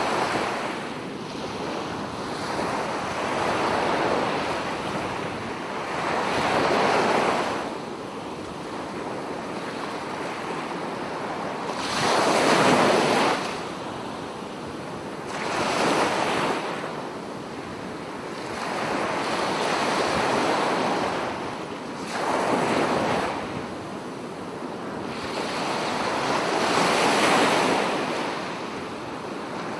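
Ocean waves breaking and washing in one after another, each a swell of surf that rises and falls every three to five seconds.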